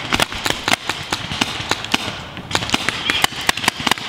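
Paintball markers firing: an irregular string of sharp pops, several a second.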